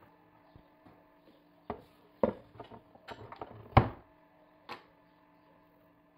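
A handful of sharp knocks and clatters of a saucepan and kitchen utensils on a worktop, bunched between about two and five seconds in, the loudest just before the four-second mark, over a faint steady hum.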